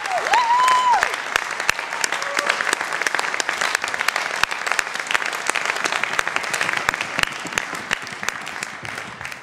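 Audience applauding, a dense patter of clapping that gradually thins and fades toward the end. A short held high-pitched call rises over it near the start.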